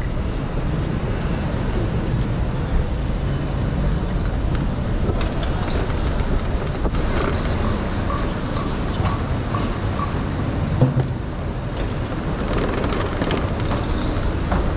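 Steady city traffic and road noise from a car driving through town, with a constant low rumble. A few faint short beeps come about eight to ten seconds in.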